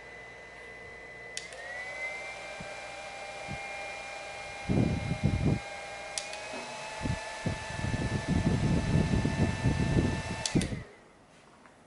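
iRiver MF-M3 mini handheld fan running with a steady high whine. Its pitch steps up twice, each time after a click, as it is switched through its three speed settings, and it cuts off after a last click near the end. Low gusty rumbles come and go during the faster part.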